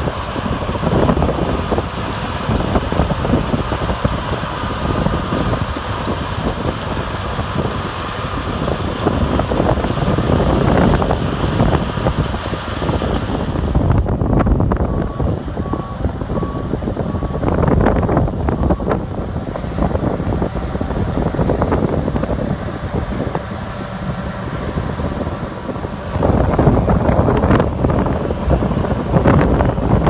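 Heavy wind buffeting the microphone over the steady running of a John Deere 9660 STS combine harvester, first while it harvests grain sorghum, then while it unloads grain through its auger. The sound grows louder near the end.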